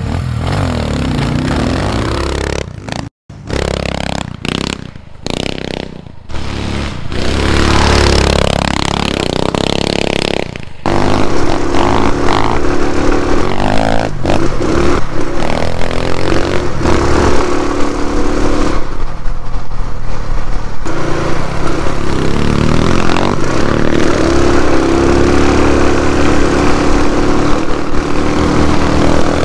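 Small single-cylinder four-stroke dirt bike engines running hard and revving up and down as the bikes ride a dirt trail. The sound cuts out and back in several times in the first ten seconds, then the engines run steadily and loudly.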